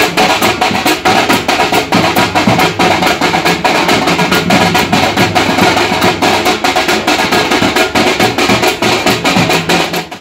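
A folk drum troupe plays several double-headed drums, slung from the players' necks and beaten with sticks, in a fast, dense rhythm.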